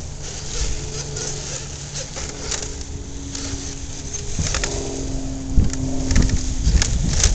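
Electric drive motor and gearbox of an RC rock crawler whining as the truck crawls slowly over rocks, the pitch steady for a while and then shifting as the throttle changes. Several sharp clicks and knocks in the second half, the tyres and chassis striking stone.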